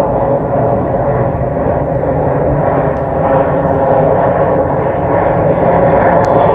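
Boeing C-17 Globemaster III's four turbofan engines heard as the plane flies over: a loud, steady jet rumble with a droning layer of engine tones, swelling a little in the second half.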